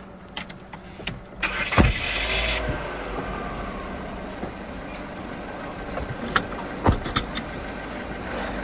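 Citroën C4 sedan's engine starting about a second and a half in, then idling steadily. A couple of sharp thumps later on, as the car door is shut.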